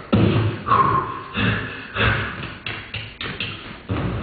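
Mouth-made sound effects through a headset microphone: a run of about seven sudden thuds and bangs, roughly evenly spaced and each trailing off.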